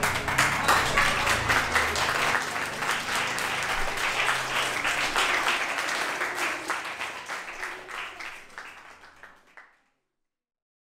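Audience applauding with dense, irregular clapping that dies away over the last few seconds.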